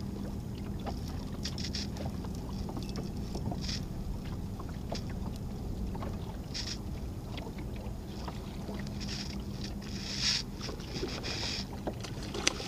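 Water moving around a small boat's hull: a steady low rumble with short splashy hisses every second or two and a few faint clicks.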